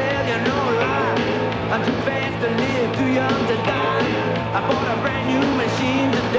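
Rock music with a sung melody over a steady bass line.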